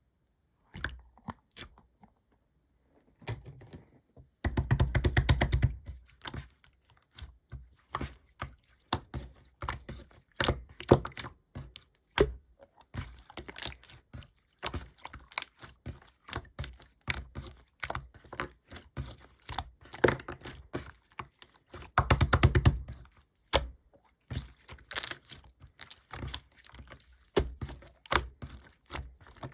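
Irregular small clicks, taps and rustles of small objects being handled close up. Two denser stretches of rustling stand out, about four and a half seconds in and again about twenty-two seconds in.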